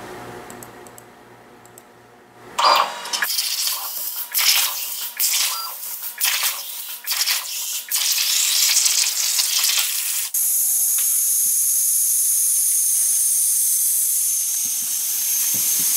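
CNC plasma cutter torch cutting sheet steel: a harsh hiss of air and arc. It starts about two and a half seconds in and sputters on and off at first, then runs steadily from about ten seconds in.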